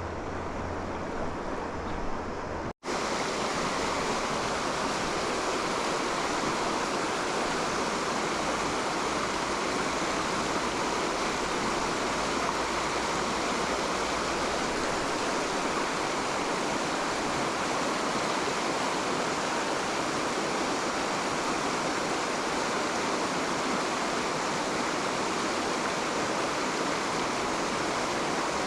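Fast river current rushing steadily, an even hiss of water. About three seconds in the sound cuts out for an instant and comes back slightly louder.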